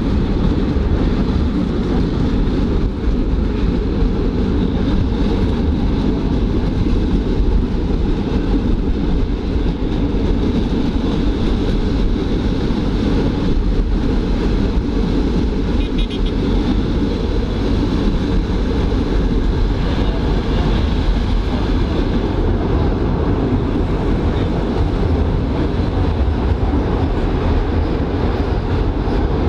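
1920s NSWGR CPH 'Tin Hare' railmotor running steadily along the line: its diesel engine and wheels rolling on the rails, heard from an open window alongside the car.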